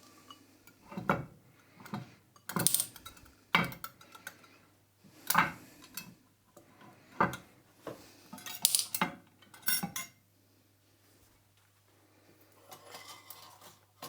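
Metal parts of a measuring microscope's ball slide clinking and knocking as they are handled and set down, about seven sharp separate clinks over the first ten seconds, then only faint handling noise.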